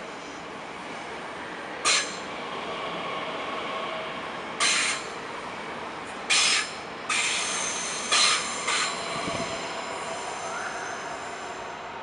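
Regional electric multiple unit rolling slowly along the platform, its wheels squealing in about five short, shrill bursts over the steady running noise of the train, which fades towards the end.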